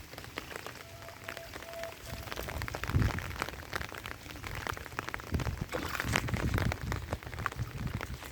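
Rain falling, with many separate drops ticking close by. A low thump about three seconds in, and more low rumbling a couple of seconds later.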